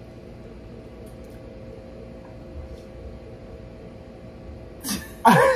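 Steady room hum with a few faint small clicks, then near the end a sudden loud burst of laughter.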